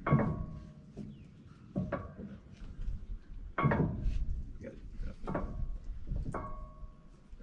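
About five sharp metal clinks, each with a brief ring, from hands and tools working the lacing pin into a spliced round-baler belt.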